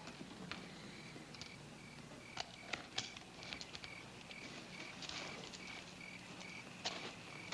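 Crickets chirping faintly in a steady, even run of short high chirps, with a few scattered sharp clicks over a faint low hum.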